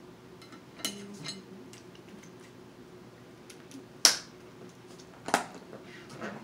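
Cooked snow crab leg shells cracking and snapping as they are broken open by hand and with a shell tool: a few short, sharp cracks, the loudest about four seconds in.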